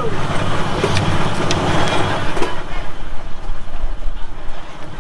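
An engine running steadily, with a few short knocks over it.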